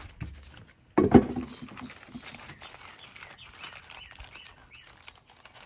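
Helmet-box extras being handled: a sudden thud about a second in, then faint rustling of paper and plastic packaging with light ticks.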